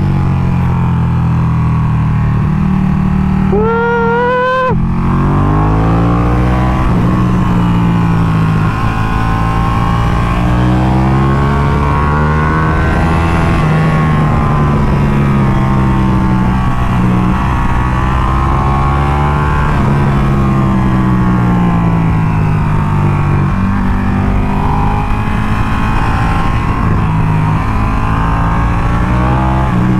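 Ducati Panigale 1299S sportbike's V-twin engine pulling hard through canyon curves, its revs rising and falling again and again as the throttle is rolled on and off, with wind rushing over the microphone. A short rising tone sounds about four seconds in.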